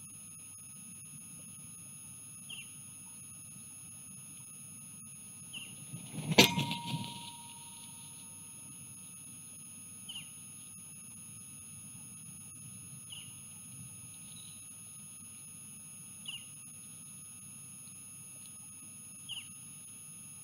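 A bald eagle's wing strikes the nest camera's pole as it flies in to land: one loud bang about six seconds in, followed by a short fading ring and a second or so of wing and stick noise.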